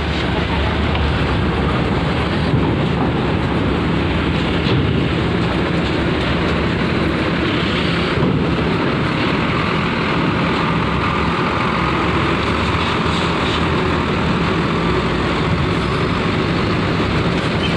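Large coach bus engine running as the bus drives slowly over the steel ramp and onto a ferry's vehicle deck, with tyre noise on the metal deck, a loud steady din.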